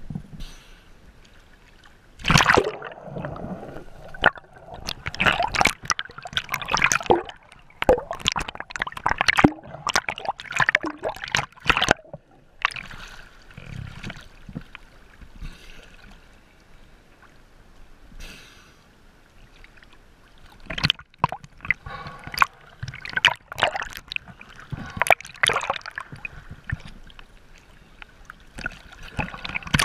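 Water sloshing, splashing and gurgling around a camera held at the waterline as it dips in and out of the sea, in irregular bursts with a quieter stretch midway.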